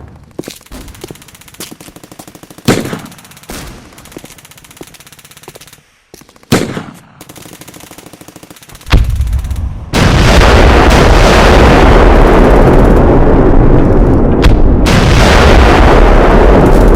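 Gunfire: a few sharp single shots over a quieter rapid patter, then, from about nine seconds in, a loud unbroken stretch of rapid fire.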